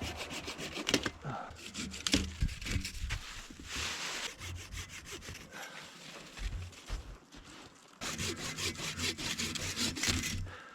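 Hand saw cutting through willow stems in quick back-and-forth strokes, slower in the middle and running fast, about five strokes a second, near the end.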